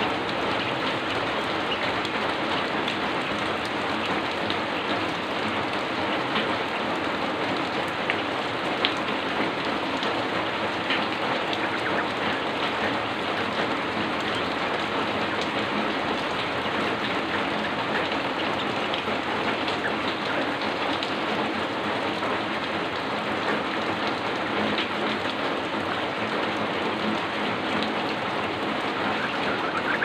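Heavy rain falling steadily: an even hiss with scattered drop ticks.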